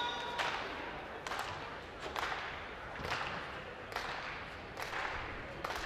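Seven sharp smacks, evenly spaced a little under a second apart, each echoing in a large hall.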